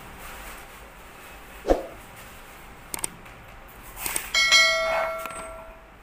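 A single knock, then a few clicks, then a bright bell-like chime ringing for about a second near the end. The chime is the sound effect of a subscribe-button and notification-bell animation.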